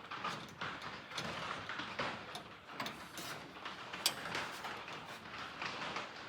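Small metal clicks and scrapes of hand tools working the set screw on a truck door's window crank handle, with one sharper click about four seconds in.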